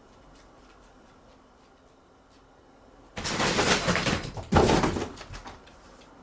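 Two loud scraping, rustling noises from something unseen, the first starting about three seconds in and lasting about a second, the second following straight after; faint ticks come before them.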